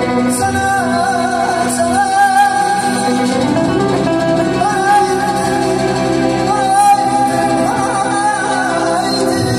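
A male singer performing an Azerbaijani song in mugham style through a microphone and PA, with long held notes and wavering ornaments, over a live band with tar.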